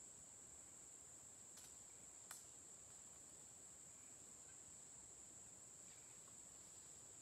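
Near silence with a faint, steady, high-pitched drone of insects in the woods. Two small clicks come about one and a half and two and a half seconds in.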